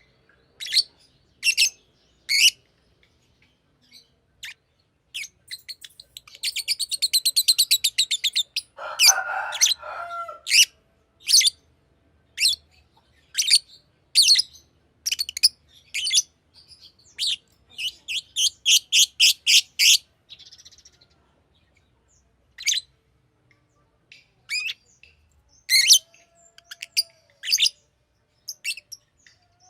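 Green lovebird chirping: sharp, high single chirps with gaps between them, two quick chattering runs (one about six seconds in, one around eighteen seconds in), and a lower, harsher call at about nine seconds.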